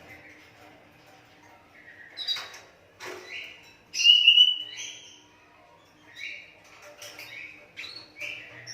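Asian pied starling (jalak suren) giving a string of short, harsh chattering calls, about a dozen, the loudest about four seconds in, with a few sharp clicks between them.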